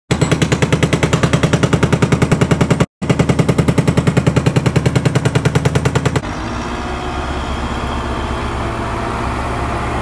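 Jackhammer sound effect pounding rapidly and evenly, cut off briefly near three seconds, for about six seconds. Then a heavy vehicle engine runs steadily.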